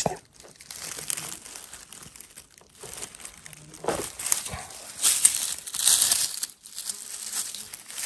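Irregular rustling and crinkling of forest litter and sand as a mushroom is dug at and handled by hand. The louder rustles come about five to six and a half seconds in.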